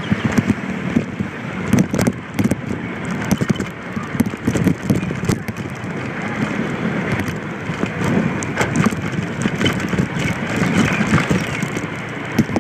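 Moped ride: a small scooter engine running under constant rumbling, crackling wind buffeting on the phone's microphone.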